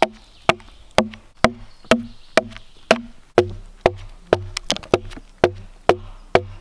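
Camp hawk axe chopping into a dead log in steady strokes, about two a second. These are scoring cuts made down to the depth of the blade every 6 to 8 inches before the top of the log is hewn flat.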